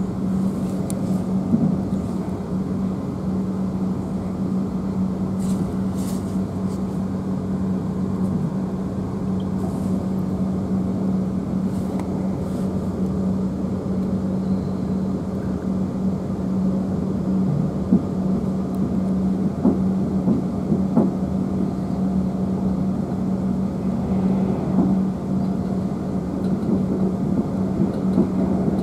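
Interior running noise of a South Western Railway Class 444 Desiro electric multiple unit travelling at speed: a steady hum over a rumble from the wheels and track, with a few short clicks.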